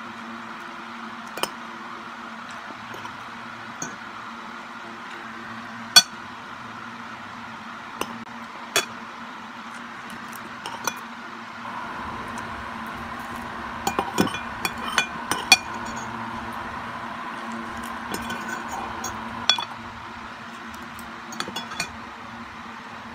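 Metal spoon and fork clinking and scraping against a plate while eating: scattered sharp clinks, busiest in a flurry about two-thirds of the way through. A steady low hum runs underneath.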